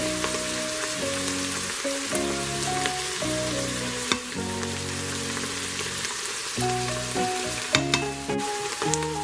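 Ground beef and onions sizzling steadily in the Instant Pot's stainless inner pot as they brown, with a few light clicks. Background music plays underneath.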